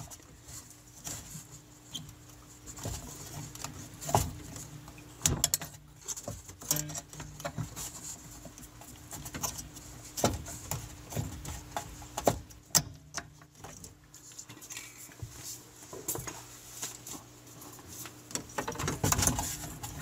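Irregular small clicks, taps and scraping of hand-handled metal and plastic parts as a plunger and spring are fitted into a GE dishwasher's drain solenoid, over a faint steady hum.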